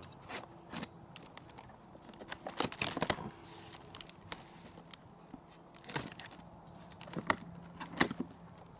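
A large knife blade slitting packing tape on a cardboard box, and the box flaps being pulled open. It comes as irregular scratchy tearing strokes, with a dense run about two to three seconds in and single sharp strokes near the end.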